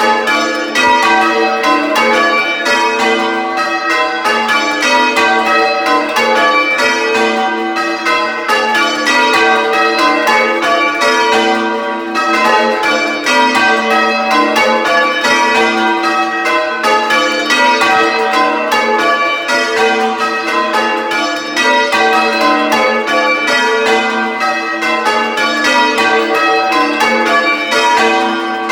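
Ring of six church bells, tenor about 12½ hundredweight in G, rung in call-changes and heard at close quarters in the belfry: a steady, unbroken stream of loud strikes, each bell's ring overlapping the next.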